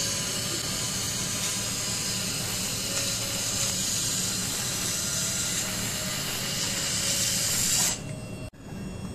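A 1000 W handheld fiber laser welder runs a seam on SS304 stainless steel sheet with a steady hiss. The hiss cuts off about eight seconds in as the weld stops, leaving a lower steady machine hum.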